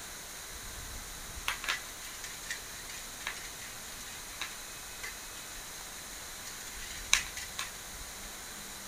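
Small sharp clicks and taps as the metal and plastic parts of a stainless-steel wire dish rack are handled and fitted by hand. There are about seven scattered clicks, the loudest about seven seconds in, over a steady faint hiss.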